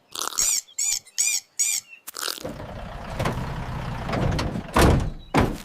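Four quick high-pitched squeaks, then a rough rumbling noise with a loud thump near the end.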